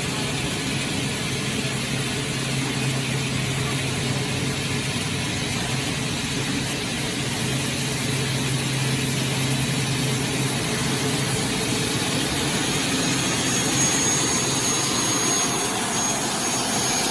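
Double-head aluminium cutting saw with 550 mm blades running, a steady motor-and-blade noise. A low hum drops out about ten seconds in, and a faint high whine comes in near the end.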